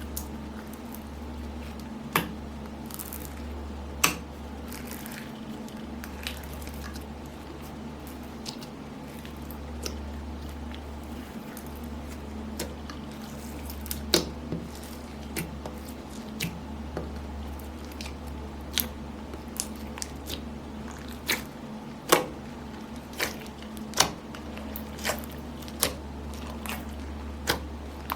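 Slime being mixed and kneaded by hand: soft wet squishing with sharp pops and clicks throughout, coming more often in the second half. A steady low hum runs underneath.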